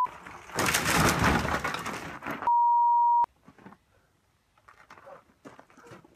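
A loud stretch of rushing noise, then a steady, even censor bleep of under a second about two and a half seconds in; after it only faint clicks and scuffs.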